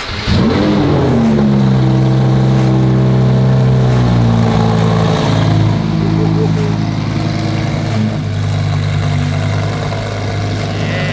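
Supercharged Lamborghini Huracán V10 starting through a custom titanium center-mount exhaust: it fires with a quick rev flare, the pitch falls over the next few seconds, and it settles into a steady idle.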